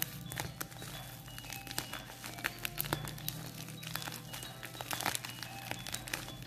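Plastic courier mailer bag crinkling and crackling in the hands as it is handled and peeled open, many small irregular crackles. Faint background music underneath.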